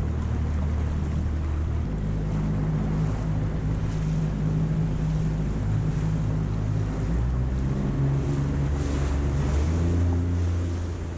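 Yamaha 40 hp outboard motor running under way on an inflatable boat, with the rush of its wake and wind buffeting the microphone. The engine note shifts in pitch a few times.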